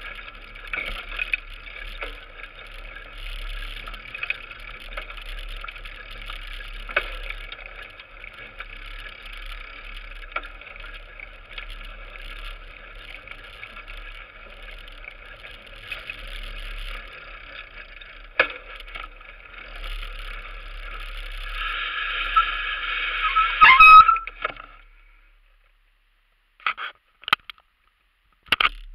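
Mountain bike riding over a rough forest dirt trail, heard from a handlebar-mounted camera: a steady rattle and rolling noise with sharp knocks over bumps. It grows louder about three quarters of the way in, then stops suddenly as the bike comes to a halt, followed by a few short clicks near the end.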